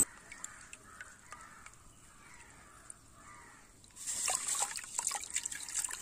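Water dripping and trickling from a handful of wet coarse sand held over a tub of water, then, from about four seconds in, water splashing and sloshing as the hand washes the sand in the tub.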